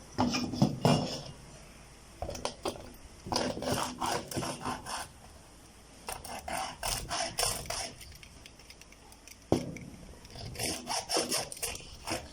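Hand-cutting a small Wi-Fi router antenna part open: rough, rasping back-and-forth strokes come in four bursts with short pauses between them.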